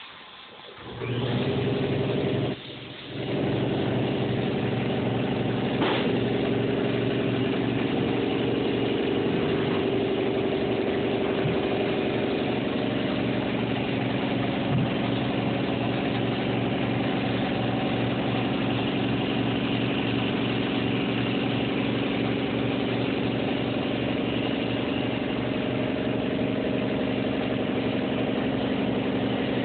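A motor-driven machine starts up, stops for a moment about three seconds in, then runs steadily with a fast low pulsing hum.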